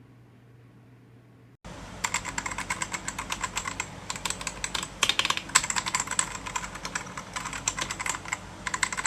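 Fast typing on an Ajazz AK992 gasket-mount mechanical keyboard with red linear switches: a dense, rapid stream of keystrokes. It starts abruptly about a second and a half in, after a faint low hum.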